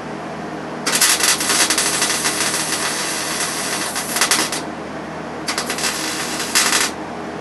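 Wire-feed (MIG) welder crackling as it lays spot welds on sheet-metal floor pan: one long burst of about four seconds, then two short bursts near the end, over a steady hum.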